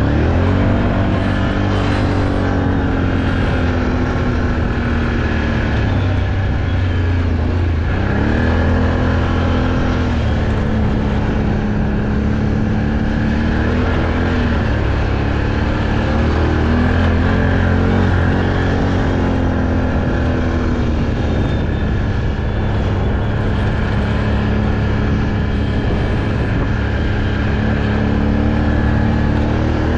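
Can-Am off-road vehicle engine running as it is ridden, its pitch rising and falling with the throttle, with a clear drop about seven seconds in before it picks up again.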